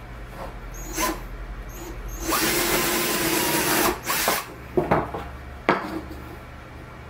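Cordless drill boring a hole in a small wooden block. There are a couple of brief trigger blips, then a steady run of nearly two seconds as the bit cuts through the wood, and a short last burst. A few sharp knocks follow.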